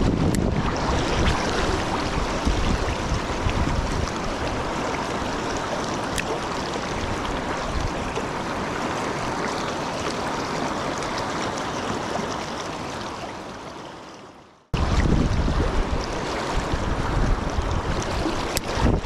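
Steady rush of river water with wind buffeting the microphone. The sound fades away about fourteen seconds in, then cuts straight back in with wind rumble.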